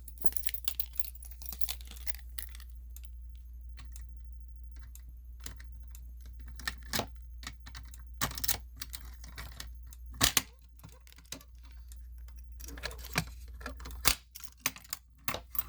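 A fire alarm pull station being reset by hand: scattered clicks, knocks and small rattles of its handle and parts being worked back into place, over a low steady hum.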